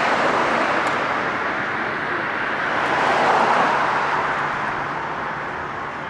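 Boeing 787-9's Rolls-Royce Trent 1000 turbofans running at taxi power as the airliner turns onto the runway, a steady jet hiss that swells to its loudest about three and a half seconds in, then slowly fades.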